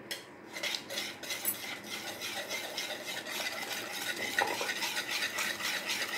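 Stainless-steel wire whisk beating egg, powdered sugar and baking powder in a ceramic bowl by hand: a fast, continuous run of light strokes with the wires hitting the bowl, starting about half a second in.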